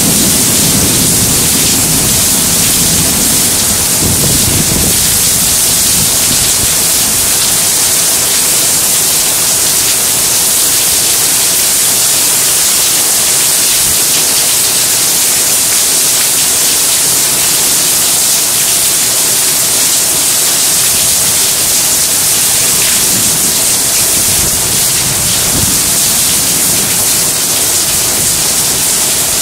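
Heavy rain falling steadily with a loud hiss. A low rumble of thunder fades away over the first few seconds, and fainter rumbles come later.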